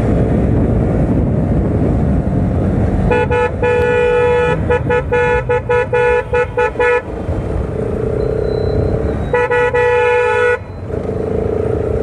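A vehicle horn honking over the steady rumble of a motorcycle ride in traffic: a honk about three seconds in, then a string of quick short beeps lasting about three seconds, and later one steady honk about a second long.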